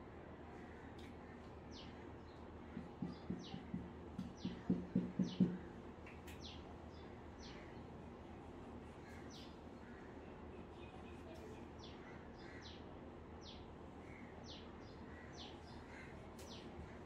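Marker scratching on a whiteboard in a quick run of about ten hatching strokes, between about three and five and a half seconds in. A bird chirps throughout with short falling chirps, one or two a second.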